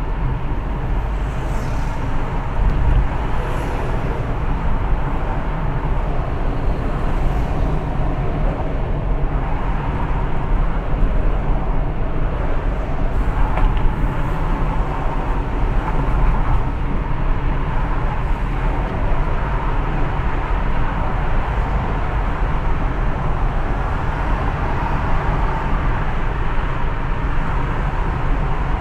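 Car driving at night with steady road noise: a low rumble from engine and tyres under an even hiss, with no sudden events.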